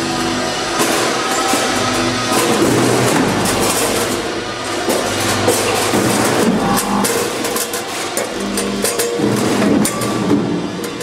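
Ten-head multihead weigher running with chicken wings. Its vibrating feeders buzz on and off in short stretches, and the weigh-hopper gates clack open and shut in quick, uneven clatter.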